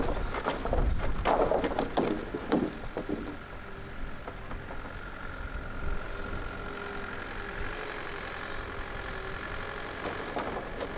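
Compact tracked excavator with a log grapple handling logs: wooden logs knock and clatter against each other during the first few seconds. Then the machine runs steadily with a held whine as it lifts and swings the bundle, and more log knocks come near the end.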